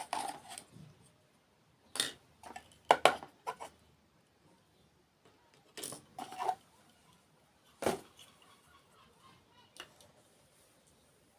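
Irregular sharp clinks and taps of cutlery against dishes, several in quick succession early on and single ones spaced a couple of seconds apart later.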